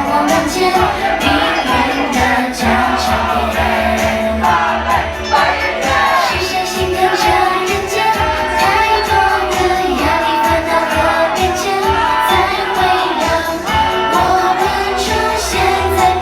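Singers performing a Chinese pop song over a backing track with a steady beat.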